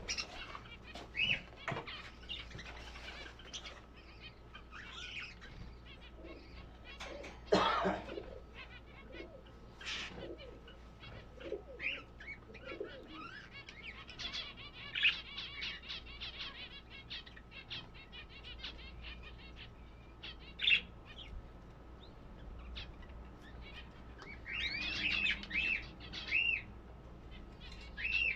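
Caged birds chirping in short, scattered calls, with bursts of wing flapping; near the end one bird gives a quick run of repeated chirps.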